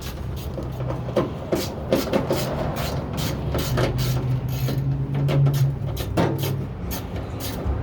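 Clicks, knocks and scraping of metal door parts and hand tools as a small panel inside a car door is worked loose, with a louder knock about six seconds in. A low steady hum runs under it for a couple of seconds in the middle.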